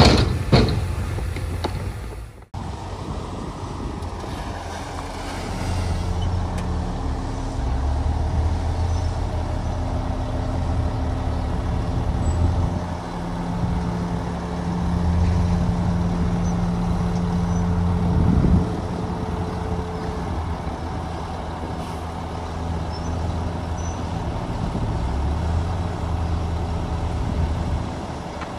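Heavy diesel engine of an earthmoving machine running steadily, its pitch and loudness rising and falling under load. A few sharp knocks in the first couple of seconds, then a sudden break before the engine sound carries on.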